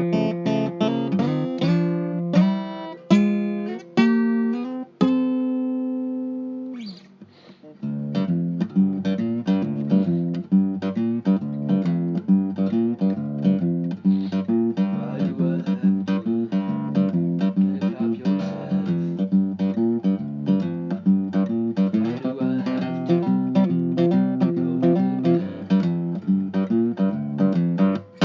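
Acoustic guitar playing: a few ringing chords and notes that fade out about six seconds in, then after a brief pause a busy passage of quick plucked notes.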